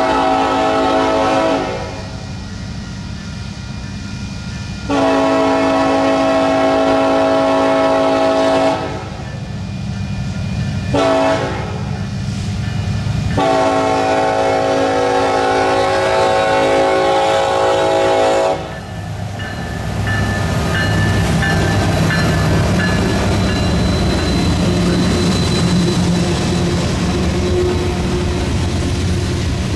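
Horn of Union Pacific SD70ACe 8607 sounding the grade-crossing signal: two long blasts, a short one and a final long one. After the horn, the locomotives pass and loaded coal hopper cars roll by with a steady rumble and wheel clatter.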